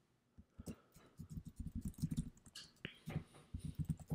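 Typing on a computer keyboard: quick runs of soft keystrokes with short breaks between them.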